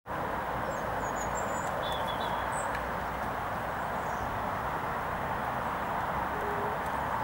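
Steady outdoor street ambience, an even hiss-like background, with a few short bird chirps about one to two and a half seconds in.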